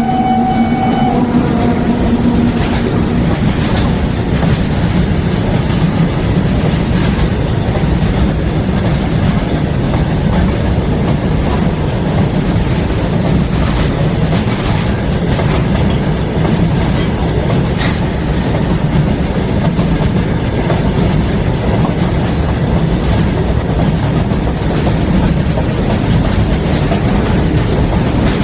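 Horn of twin WAG-5 Indian Railways electric locomotives, dying away in the first second or two. Then the steady rumble and clickety-clack of the train running on the rails, with a few clicks of wheels over rail joints.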